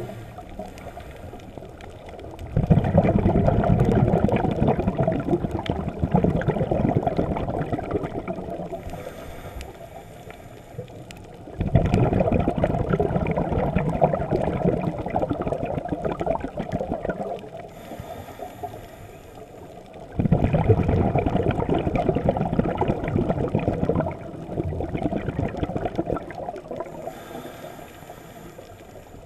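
Scuba diver breathing through a regulator underwater: three long exhalations of bubbles, each starting suddenly and fading away, about nine seconds apart, with a short high hiss of inhalation before the second and third.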